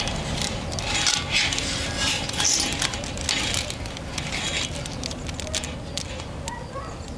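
Objects being handled: bursts of rustling with many small clinks and rattles.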